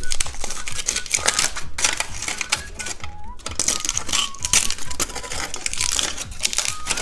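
Plastic candy wrapping being handled and opened: a dense, rapid crackling of clicks.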